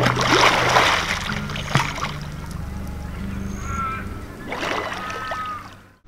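Water splashing as a swimmer moves in a lake, loudest in the first second, over soft background music with low held notes and a few short bird calls; everything fades out just before the end.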